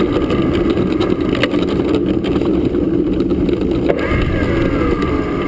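Engine and propeller of a radio-controlled T-28 Trojan model airplane running as the plane taxis, heard close up from under the wing, with the wheels rumbling on asphalt. The engine pitch slides down in the last second or so.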